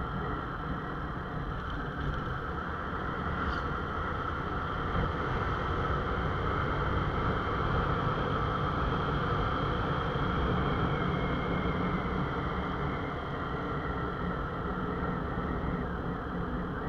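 Motorcycle engine running steadily while riding, mixed with wind and road noise on the handlebar-mounted camera's microphone, growing a little louder partway through and easing off near the end.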